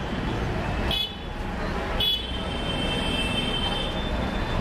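Bus-station traffic noise with vehicle horns honking: a short high-pitched honk about a second in, then a longer one held for about two seconds.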